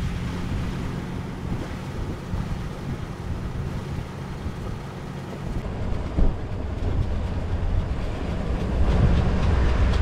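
Wind buffeting the microphone, a steady low rumble that grows louder near the end, with a single thump about six seconds in.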